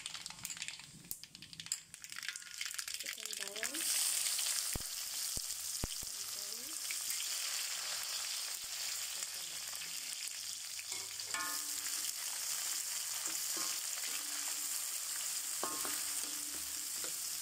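Mustard seeds in hot oil, faint crackling at first. About four seconds in a loud sizzle starts as sliced onions, curry leaves and green chillies go into the oil. They fry steadily while a wooden spatula stirs them around the kadai, with a few short scrapes against the pan.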